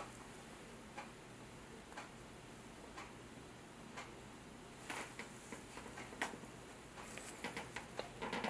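Faint clock ticking, one tick a second. From about halfway through, irregular small clicks and rustles join it.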